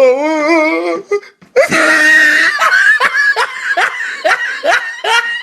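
A drawn-out voice wavering in pitch, then loud, hearty laughter in a quick run of short 'ha' bursts, about two or three a second.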